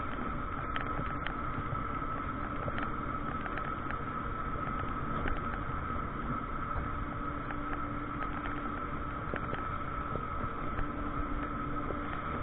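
Carver electric tilting three-wheeler cruising at a steady speed, heard from inside the cabin: steady road and wind noise with a constant high whine running through it and a few faint ticks.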